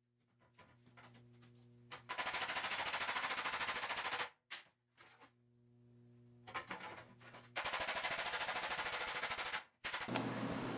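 Hammer blows on a 1973 Triumph TR6's steel rocker panel, laid over a round bar on a steel workbench, to bend its flattened curve back into shape. There are two fast, even runs of strikes, each about two seconds long, with quiet pauses and a few light knocks between them.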